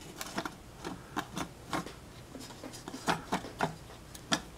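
Irregular light clicks, taps and rubbing as a Saab 9000 AC condenser fan blade and its metal mounting bracket are handled and fitted together.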